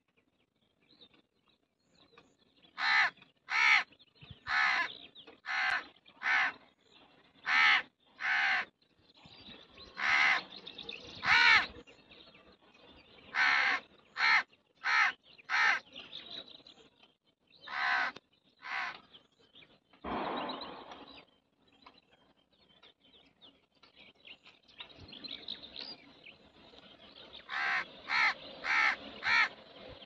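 House crow cawing: short harsh caws, about fifteen in loose runs over the first twenty seconds, then a quick run of four near the end. A longer, lower rasp comes about twenty seconds in.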